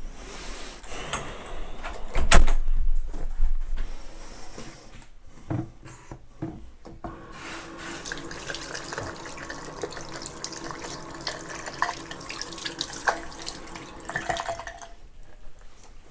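Bathroom sink tap running steadily into the basin while hands are washed under it, shut off suddenly a little before the end. About two seconds in there is a loud sharp knock with a couple of seconds of rushing noise after it, and a few lighter knocks follow.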